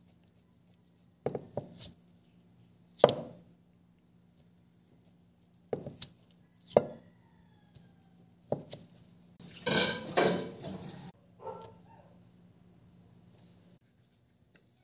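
Kitchen knife cutting slices from a block of canned meatloaf on a plastic cutting board, the blade knocking on the board as each slice goes through: several sharp knocks a second or two apart, the loudest about three seconds in. A longer, denser clatter follows about ten seconds in.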